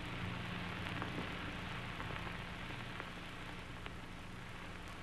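Quiet hiss and faint crackle of an old film soundtrack, with a steady low hum beneath and a few faint clicks; no music or voice.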